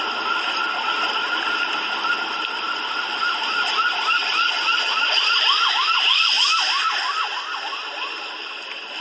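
A siren, shifting into a fast up-and-down wail about halfway through, over a steady hiss. It grows louder, then fades toward the end.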